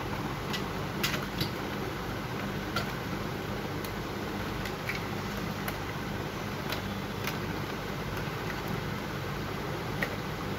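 Scattered light clicks and taps of hands handling the parts and wiring inside an opened Hitachi CP-X5022WN projector, over a steady hiss with a low hum.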